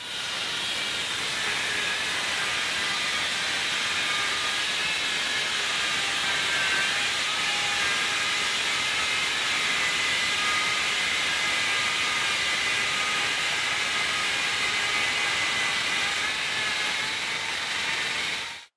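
Handheld electric power tool running at full speed as it is worked across a plywood panel: a steady motor whine over a hiss of cutting noise. It starts and stops abruptly.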